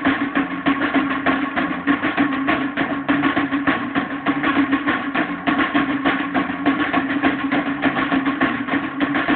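A drum kit played in a fast, busy beat with cymbals and drums, together with a strummed guitar holding steady notes, in a rehearsal. The recording is dull and band-limited.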